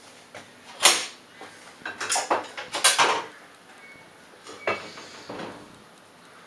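Dishes and cutlery clattering against a metal kitchen counter in a few sharp knocks: one about a second in, a quick cluster around two to three seconds, and a lighter one near five seconds.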